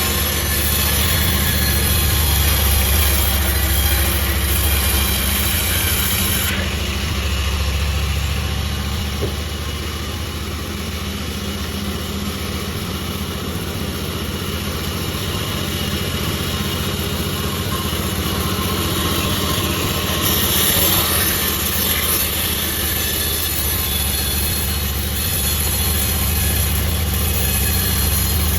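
Sawmill machinery running with a steady low engine drone. A high hiss rides on top for roughly the first six seconds, drops away, and returns about twenty seconds in.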